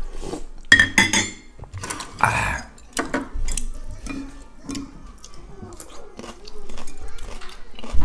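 A metal spoon clinking and scraping against a ceramic soup bowl, with slurps of broth from the spoon, followed by sharp chopstick clicks. A low thump comes right at the end.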